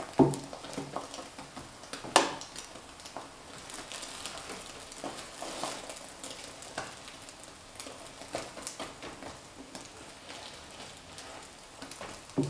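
Egg-and-batter pancake sizzling softly on an electric pancake pan with the heat switched off, while a spatula scrapes and taps on the pan's surface. Two sharp knocks come near the start, about two seconds apart.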